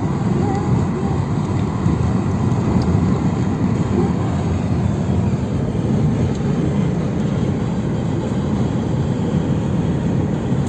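Steady low rumble of a car driving along a road: engine, tyre and wind noise.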